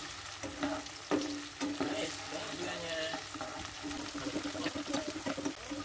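Sliced onion and garlic sautéing in oil over low heat in a nonstick pan, a steady sizzle, with a plastic spatula scraping and knocking against the pan again and again as it is stirred.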